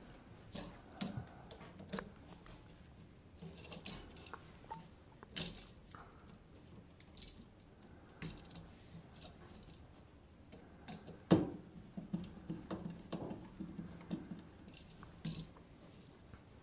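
Scattered small metallic clicks, taps and rattles as a CO/ALR-rated light switch and its aluminum wires are handled and fitted into a wall box, with one sharper knock about eleven seconds in.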